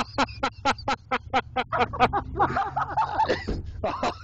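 A person laughing hard in rapid breathy bursts, about seven a second, with squealing voiced stretches between them.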